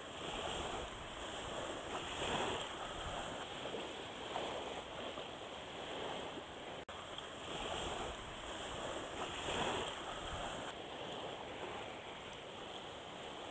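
Small choppy waves washing and lapping in shallow water, the wash swelling and easing every couple of seconds, with some wind on the microphone.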